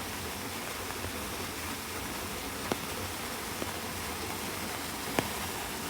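Steady rushing noise of a waterfall and falling rain, with two short sharp taps, one near three seconds in and one about five seconds in.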